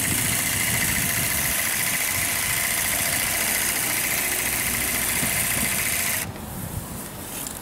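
Bosch ASB 10.8 LI cordless grass shear running: its small electric motor and reciprocating blades make a steady whine as it trims grass. It stops suddenly about six seconds in.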